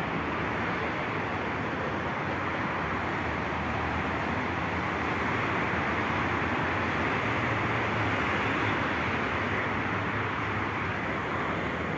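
Steady traffic noise from a busy multi-lane expressway below: an even hiss of tyres and engines with a low rumble underneath.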